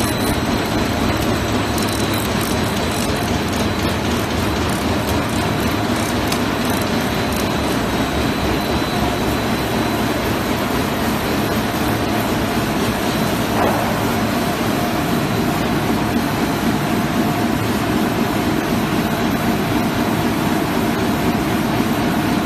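Paper reel slitting and rewinding machine running steadily at production speed: an even mechanical rush of the paper web over the rollers and drives, with a faint high whine that fades about halfway through.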